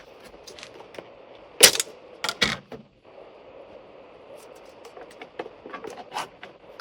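Clatter of cooking utensils and food being handled at a grill: a few sharp knocks about two seconds in, then lighter clicks over a faint steady hiss.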